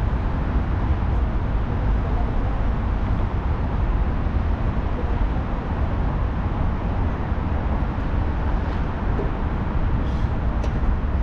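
Steady rumble of road traffic, heavy in the low end, with a few faint clicks near the end.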